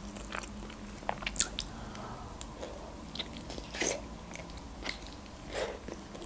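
A person biting into a boiled khinkali (Georgian dumpling) and chewing it: a run of short, irregular mouth clicks and smacks.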